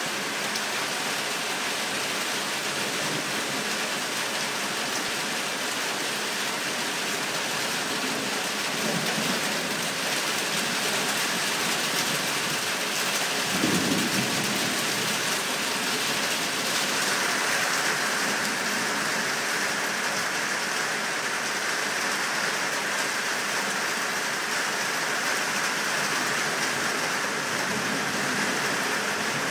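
Steady rain hissing during a thunderstorm, with a low roll of thunder about halfway through and fainter rumbles a little before it. The rain grows stronger in the second half.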